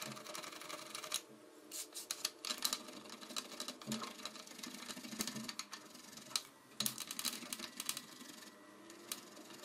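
A white wax candle being grated on the fine holes of a stainless-steel hand grater: light, scratchy rasps, stroke after stroke at an uneven pace, with a couple of short pauses.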